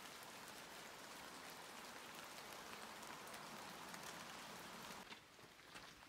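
Light rain falling through the forest: a faint, steady hiss with scattered drips, which drops away about five seconds in.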